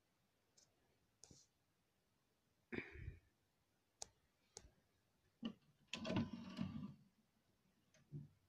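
Faint, scattered clicks and taps of a handheld phone being handled and moved against a glass tank, with a longer rustle about six seconds in.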